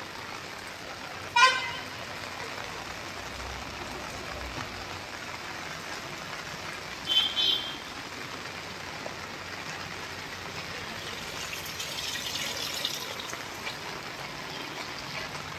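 Steady hiss of falling rain. A short vehicle horn toot sounds about a second and a half in, and a brief high chirp follows around seven seconds.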